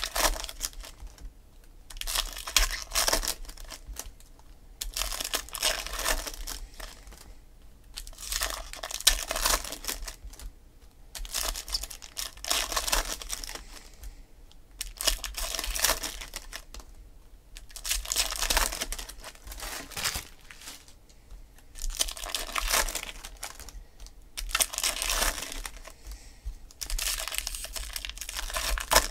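Foil wrappers of baseball card packs being torn open and crinkled by hand, in repeated rustling bursts about every two to three seconds.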